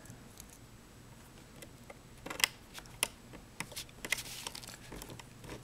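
Small, irregular clicks and ticks of a screwdriver turning a small screw into a laptop's plastic screen bezel, starting about two seconds in.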